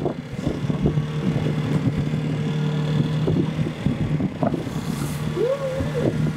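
Boat's outboard motor running at a steady cruising speed, a constant drone, with choppy water splashing against the wooden hull.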